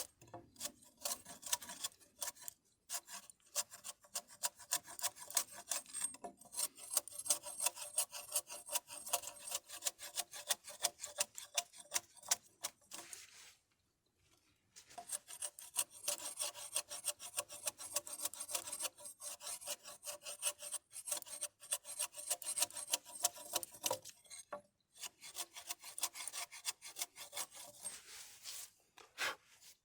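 Rapid, regular rasping strokes of a tool worked back and forth on a hard material, several strokes a second, in long runs broken by short pauses.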